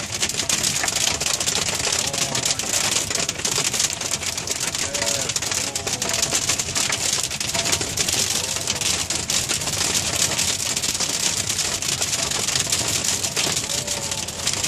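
Hail pelting the roof and windshield of a previous-generation Hyundai Sonata, heard from inside the cabin as a steady dense clatter of countless rapid clicks over a hiss.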